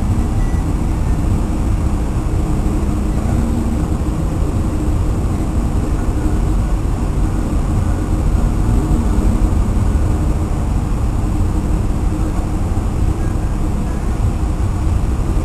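Loud, steady wind rumbling on the microphone on the open deck of a ship in rough sea, mixed with the wash of waves along the hull.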